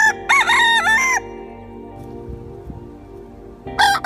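Rooster crowing once, a drawn-out cock-a-doodle-doo lasting a little over a second, with a second, shorter call near the end.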